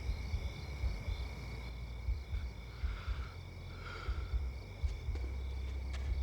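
Insects, crickets or the like, chirping in steady high trills over a low outdoor rumble, with two short soft sounds about halfway through.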